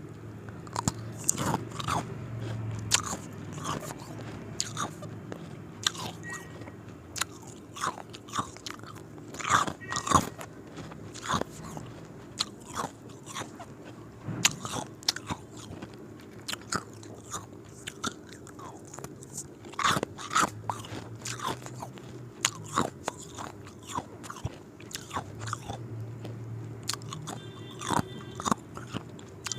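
Ice cubes being bitten and chewed: irregular, sharp crunching cracks, some loud and some small, in quick runs with short pauses between.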